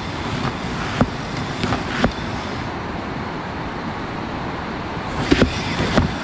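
Steady wind buffeting the microphone, a low rumbling rush, with a few sharp clicks scattered through it, about a second in, at two seconds and a small cluster near the end.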